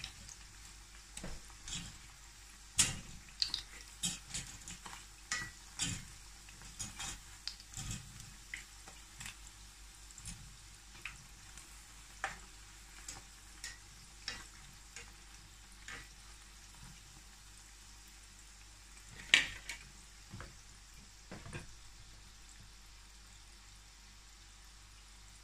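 Banana-and-egg batter fritters deep-frying in a pot of oil: a faint steady sizzle, broken by irregular sharp pops and taps as bamboo chopsticks turn and lift the fritters against the wire draining rack and pot. The loudest knock comes about 19 seconds in.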